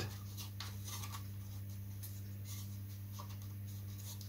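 Faint light ticks and scratches of small wooden parts being handled and pushed into slots in a wooden model-aircraft fuselage frame, over a steady low electrical hum.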